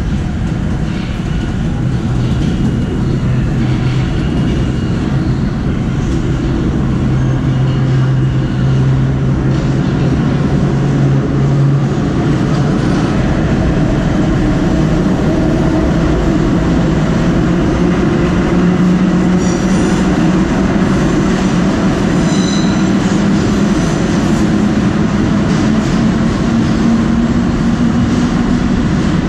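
Vintage IRT Lo-V subway cars running through the station without stopping: a loud steady rumble of wheels on rail, with a whine that climbs slowly in pitch over the second half. Brief high wheel squeals come twice, a little past the middle.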